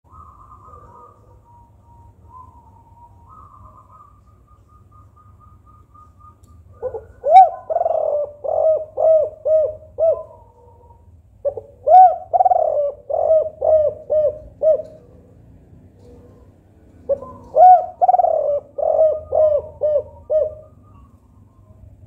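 Spotted dove (tekukur) cooing in three phrases, each a quick string of short arched coo notes: the 'kuk 4' song that hobbyists play to get other doves singing. The phrases start about seven seconds in, again near twelve seconds, and near seventeen seconds.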